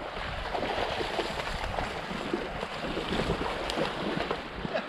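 Splashing, rushing shallow river water as hooked sockeye salmon thrash at the surface while being landed and netted, over wind on the microphone.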